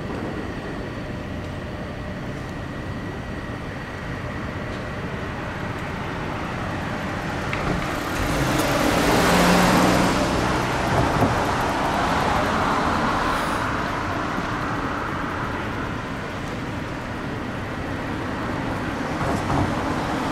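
Road traffic at a city intersection, with a motor vehicle passing close and swelling up and fading away about halfway through.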